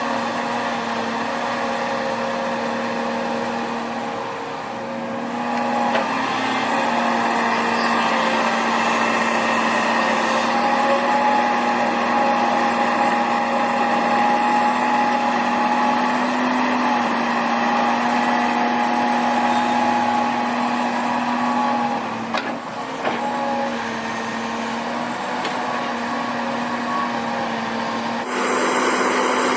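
Diesel engines of heavy earthmoving machinery, excavators and dump trucks, running with a steady, loud drone. The sound changes abruptly a few seconds in and again near the end.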